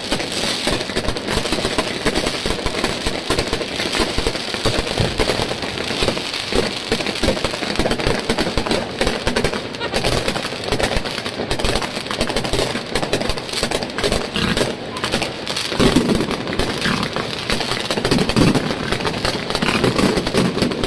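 Fireworks and firecrackers going off in a dense, continuous barrage: many overlapping bangs and crackles with no pause.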